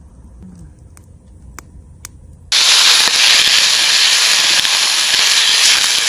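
Wood campfire ticking softly with a few crackles, then a loud, steady hiss of steam starts suddenly about two and a half seconds in as the fire is doused for the night.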